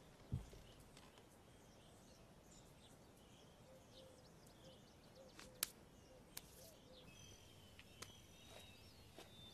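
Near silence: faint outdoor ambience with a few faint bird chirps, a dull low thump about half a second in, and a couple of short sharp clicks around the middle.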